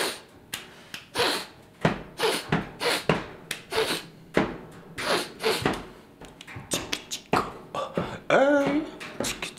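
Beatboxing: a man making rhythmic vocal percussion with his mouth, roughly two sharp hits a second, with a sung note that slides up and down near the end.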